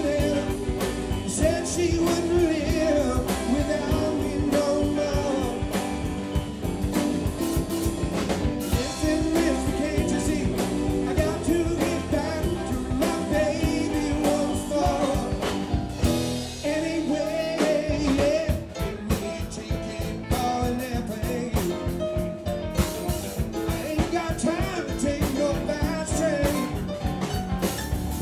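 A live rock band plays a song: drum kit, electric guitar and electric bass with singing. About two-thirds of the way through, the drums stop for a moment and then come back in.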